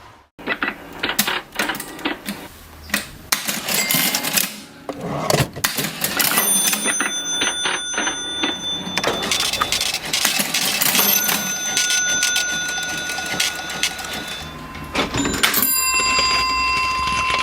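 Vintage mechanical cash register being worked: keys and levers clack in quick runs, and its bell rings out three times, about six seconds in, about eleven seconds in and near the end.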